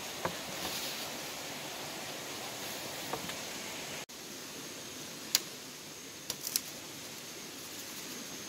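Steady hiss of outdoor background noise, broken by a brief dropout about four seconds in, followed by a few short sharp clicks.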